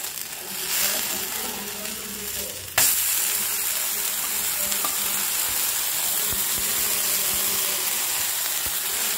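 Jowar-flour dosa sizzling in oil on a hot tawa: a steady frying hiss that jumps suddenly louder about three seconds in and then holds steady.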